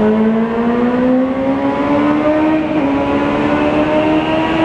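Honda CBR600 sport bike's inline-four engine running at high revs under acceleration inside a road tunnel, its pitch climbing slowly and steadily, with wind rushing over the rider's microphone.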